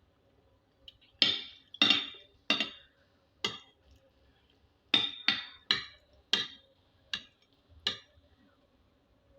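Eating utensil clinking against a dish as food is scooped up, about ten sharp clinks with short ringing tails. Four come close together, then after a short pause six more.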